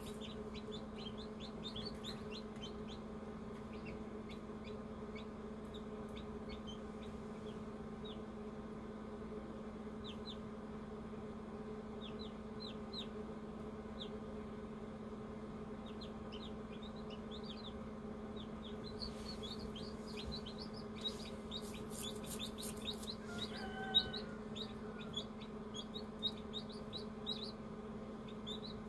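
Newly hatched chicks peeping inside an egg incubator over the incubator's steady hum. The short, falling peeps come scattered at first and turn into a busy run in the last third, with a few sharp clicks mixed in.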